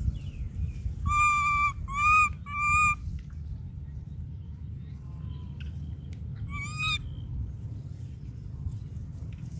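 A young monkey gives three short, high, clear calls in quick succession, then one more a few seconds later.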